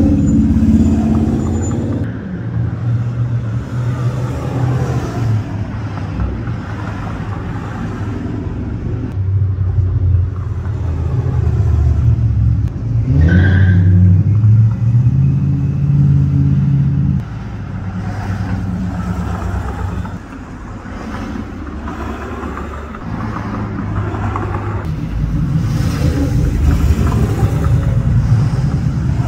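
Engines of classic cars driving past, a low rumble that swells and fades as cars come and go. About halfway through, one engine revs up sharply and drops back.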